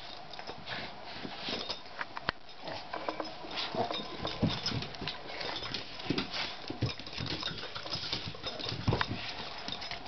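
Two small dogs play-fighting: scuffling fur and bodies, with paws and claws scrabbling on a cushioned dog bed and a wooden floor, giving irregular clicks and soft thumps. The loudest thump comes about nine seconds in.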